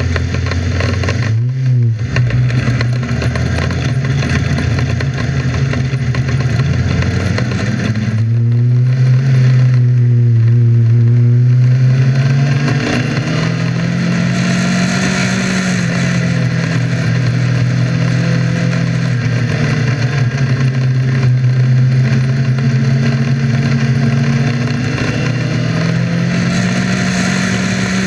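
Winged dirt-track sprint car's engine heard from the cockpit, running and revving up and down as the car pulls away and circles the dirt track, with a quick blip about a second and a half in and a slow climb in pitch near the end.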